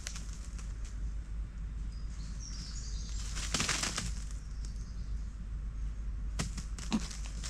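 Dry leaves rustling: a burst of under a second about midway, then two short, sharp rustles near the end.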